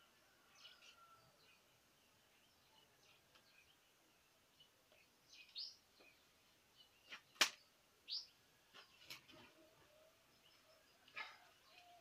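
Quiet ambience with a few short, upward-sweeping bird chirps and several sharp clicks, the loudest click a little after the middle.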